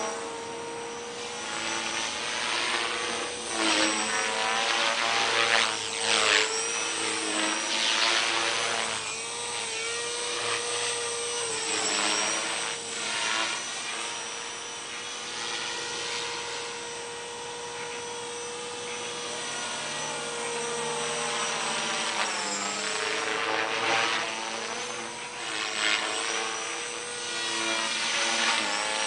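Align T-Rex 450 Sport electric RC helicopter flying: a continuous high whine from its motor and rotor, bending up and down in pitch and swelling and fading as it manoeuvres and passes by.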